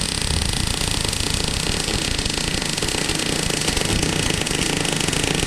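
MIG welder arc crackling steadily as a bead is run on steel, with the wire feed turned up after the weld seemed short of wire.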